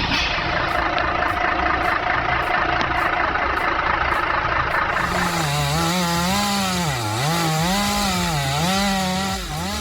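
Chainsaw running while cutting wood. About halfway through, the sound changes to an engine whose pitch rises and falls over and over, revving and dropping under load.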